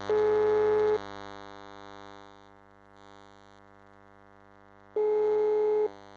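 Telephone ringback tone heard through a phone's loudspeaker: two one-second beeps of a single tone about four seconds apart, the called phone ringing unanswered. A steady electrical hum runs underneath.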